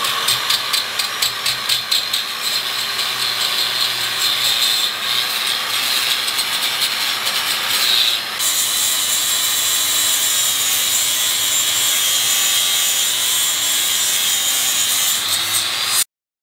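Angle grinder with a grinding disc grinding the steel axle tube of a Ford 8.8 rear axle housing. For the first half the grind pulses rapidly, then it turns steady and higher, and it stops abruptly near the end.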